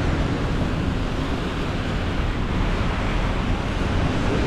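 Steady rushing noise of wind buffeting the microphone, mixed with traffic passing on a rain-wet street.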